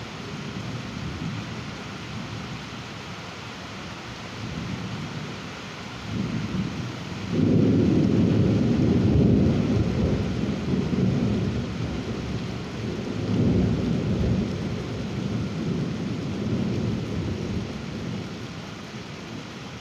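Thunder rumbling over steady rain. A loud, deep roll comes in suddenly about a third of the way through and rumbles on for several seconds. A second swell follows, then it dies down to rain again.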